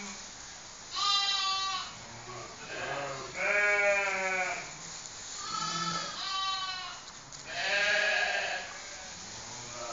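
A barn flock of lambs and ewes bleating, one call after another with some overlapping, about five loud bleats among fainter ones.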